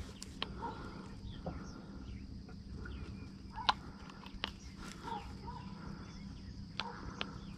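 Faint outdoor ambience: a steady high insect drone with scattered bird chirps, broken by a few sharp clicks and knocks about halfway through and near the end.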